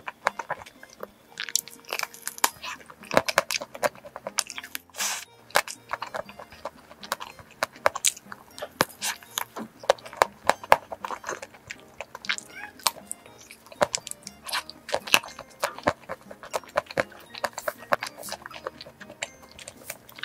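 Close-miked biting and chewing of a crisp-shelled, cream-filled dessert, giving many sharp irregular crunches and crackles, over soft background music.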